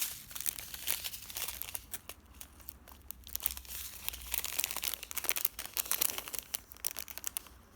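Plastic packaging of a diamond painting kit crinkling and rustling as it is handled, in irregular crackles, quieter for a moment about two seconds in.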